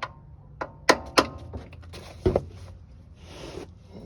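Hammer tapping a chisel against the lip of a transmission extension-housing (tail-housing) seal to drive it out: about five irregular, metallic ringing strikes.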